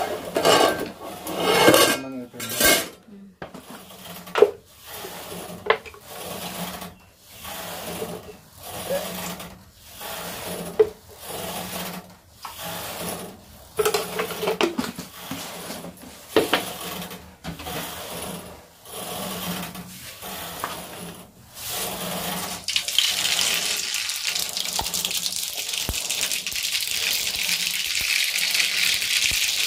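Pots, a lid and a plastic jar clatter as they are handled. From about 22 seconds in, cooking oil in a steel kadai on a gas burner starts sizzling, a steady hiss that grows louder as the oil heats.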